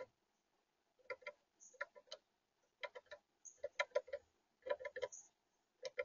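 Tufted titmouse pecking at a seed on a plastic feeder perch: quick hard taps in clusters of two to four, a cluster about every second.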